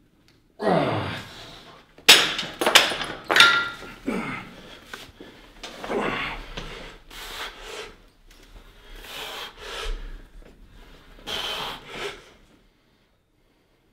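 A man groaning and grunting with effort through a weight-training set, several groans falling in pitch. A quick run of metallic clanks from the gym weights comes about two seconds in.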